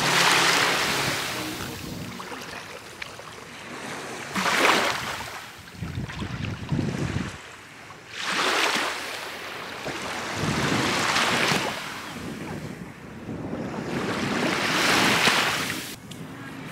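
Small Baltic Sea waves lapping and washing up onto a sandy shore, a fresh surge of wash every three to four seconds. Some wind rumbles on the microphone between the surges.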